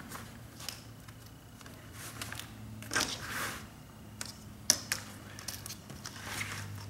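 Scattered clicks and a scrape as a poster frame's thin edge strip is handled and fitted onto the edge of the glass and backing, with one sharp click about two-thirds of the way through.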